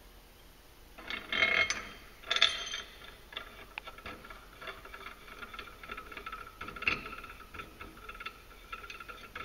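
Metal parts clank as a clutch compression tool is set onto a threaded rod over a UTV secondary clutch spring. Light, fast ticking and rattling follows as the tool is spun down the threads by hand, with one sharper clank partway through.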